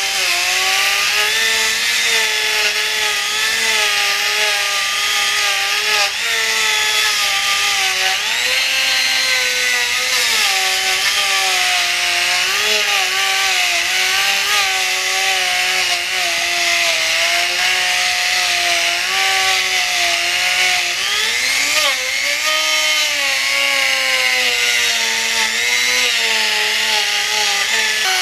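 Handheld Dremel-type rotary tool running steadily at high speed with a small cloth buffing wheel pressed against a painted motorcycle wheel, its whine wavering up and down in pitch as the load on the bit changes.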